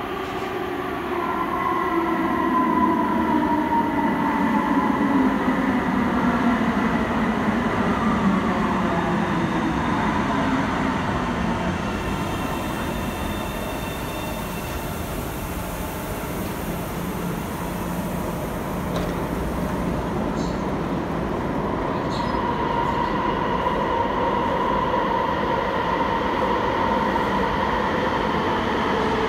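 Alstom Citadis Spirit light-rail train pulling into the platform and braking to a stop, its electric traction motors whining and falling steadily in pitch as it slows. This is followed by a hiss and a few sharp clicks once it has stopped.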